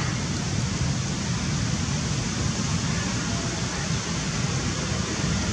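Steady rushing outdoor background noise with a fluttering low rumble, like wind on the microphone; no distinct call or other event stands out.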